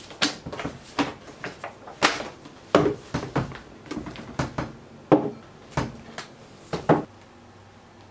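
Paper pages of a workbook flipped and books handled on a wooden desk: a string of quick paper rustles and light knocks, stopping about seven seconds in.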